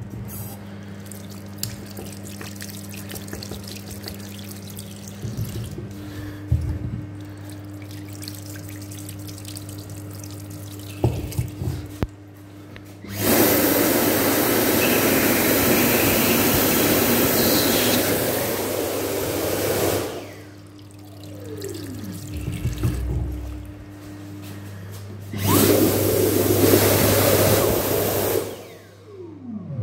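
A sink tap runs quietly for the first dozen seconds. Then a Dyson Airblade Mk2 hand dryer blows at full power for about seven seconds and spins down with a falling whine. It starts again for about three seconds near the end and winds down the same way.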